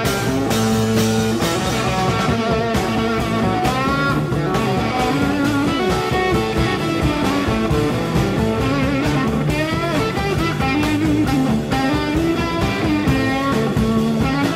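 Rock music: a lead electric guitar solo with bending notes over bass and drums, no vocals.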